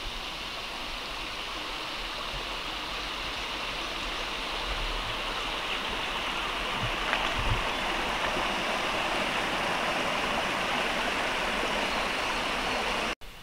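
Mountain stream rushing over rocks: a steady rush of water that grows slightly louder and cuts off suddenly near the end.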